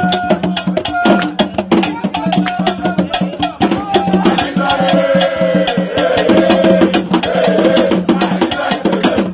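Music with a fast, busy percussion rhythm over a steady low tone; a wavering melodic line comes in about halfway through.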